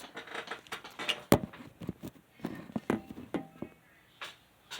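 A metal padlock and its keys being handled: a sharp click about a second in, then several lighter clicks and knocks.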